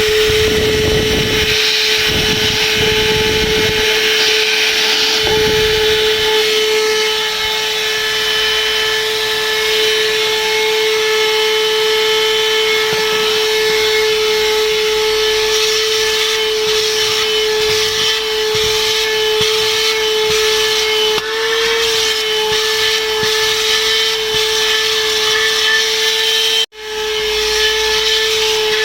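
TUSA cordless handheld vacuum cleaner running at full suction with a steady, high motor whine. There are rough scraping and sucking noises in the first few seconds as the nozzle works over the surface, and the sound cuts out for an instant near the end.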